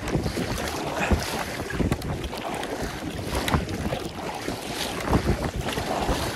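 Wind buffeting the microphone over sea water splashing and lapping against a kayak, with irregular louder splashes.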